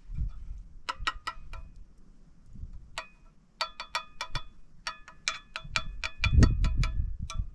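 Metal spoon clinking and scraping against a metal plate while stirring rice milk. Each strike makes the plate ring briefly: a few strikes about a second in, then a quickening run of them through the second half. A loud low rumble comes about six seconds in.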